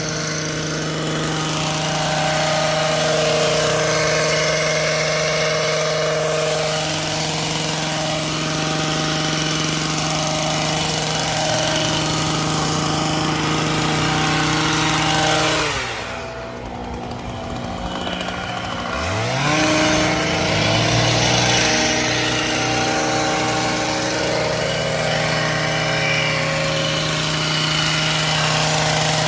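Gas-powered two-stroke hedge trimmer running at speed while cutting dry ornamental grass. About sixteen seconds in it drops back toward idle, then revs up again about three seconds later.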